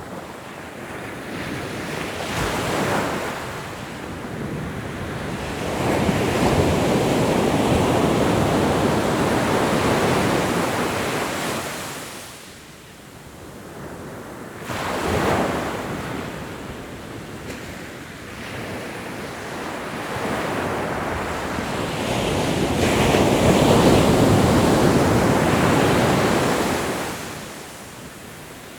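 Ocean waves breaking and washing onto a shore, in slow surges that swell and ebb: two long washes with a shorter one between.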